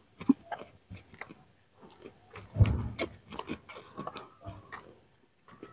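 Hands kneading sticky maida dough in a steel plate: irregular wet squishing and slapping, with a heavier thump about two and a half seconds in.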